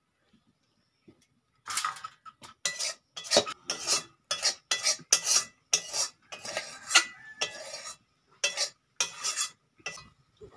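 A metal spoon scraping and clinking against an aluminium pan of fish curry as the pieces are stirred and moved about: a quick, irregular series of strokes starting a little under two seconds in.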